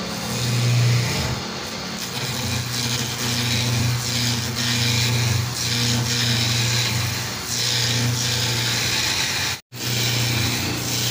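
Wood lathe running with a steady motor hum while a hand-held gouge cuts a spinning wooden pillar blank. The cutting hiss rises and fades with each pass of the tool. The sound drops out for an instant near the end.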